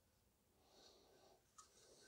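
Near silence: faint rustling and one light click of a plastic vacuum-cleaner motor housing being turned over in the hands.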